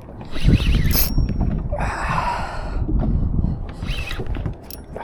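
Van Staal VR150 spinning reel being cranked under load against a hooked tarpon, with rumble and knocks from handling the rod.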